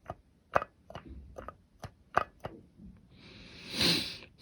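Light clicks and knocks of the disassembled exercise stepper's loose metal parts being handled and wobbled, about six in the first two and a half seconds, then a short swelling hiss near the end.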